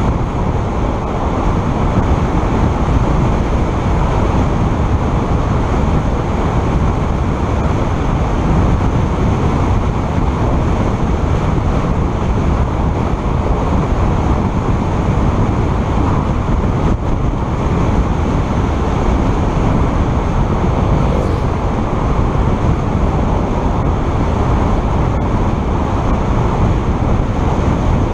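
Steady wind rush and tyre noise from a vehicle driving on asphalt at about 65–70 km/h, the wind buffeting the microphone.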